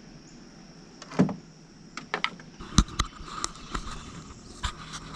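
Irregular knocks and clatter in a small fishing boat, starting about a second in, over a steady high drone of insects.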